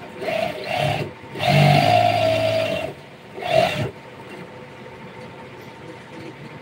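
Sewing machine stitching in four short runs, the longest about a second and a half in the middle, stopping about four seconds in.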